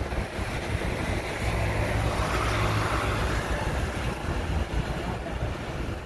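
Road and wind noise from a moving car: a steady low rumble with a hiss over it, swelling from about a second and a half in to about four and a half seconds in.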